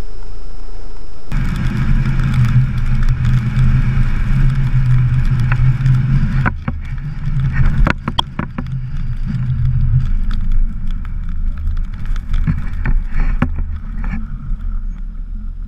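Car engine and road noise from a moving car: a steady low drone, with several sharp knocks about six to eight seconds in.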